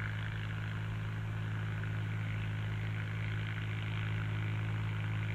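Steady low drone of a Ford tractor's engine running, even and unchanging throughout.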